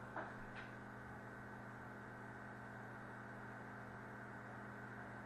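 Faint room tone with a steady low hum, and one small click just after the start.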